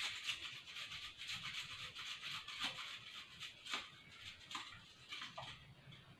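Fresh ginger root being grated on a metal hand grater over a steel pot: a run of quick rasping strokes that thin out and stop shortly before the end.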